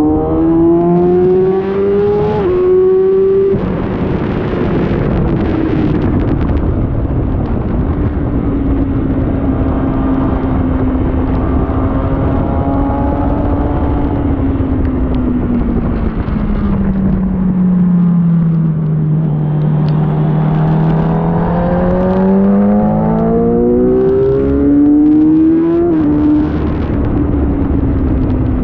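Sport motorcycle engine being ridden hard: it revs up and shifts up twice near the start, holds a steady pitch, falls to a low drone as the bike slows about two-thirds of the way through, then revs up again with another upshift near the end. A steady rushing noise runs underneath.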